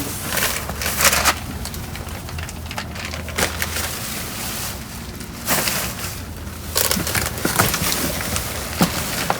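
Trash being rummaged through in a dumpster: bags, boxes and packaging rustling and crunching, with scattered sharp knocks and clicks, over a low steady hum.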